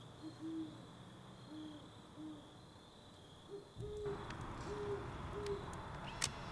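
An owl hooting: a series of short, low hoots in two phrases, the second phrase pitched a little higher, over a steady high tone. From about four seconds in, a louder steady noise with scattered crackles takes over, and there is a sharp click near the end.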